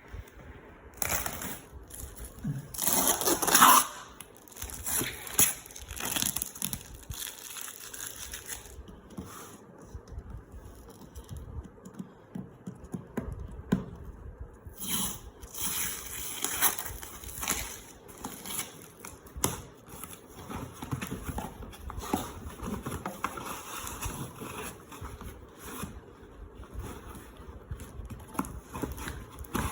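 Packaging being handled and opened by hand: irregular tearing, scraping and crinkling of wrapping and box material, loudest about three to four seconds in.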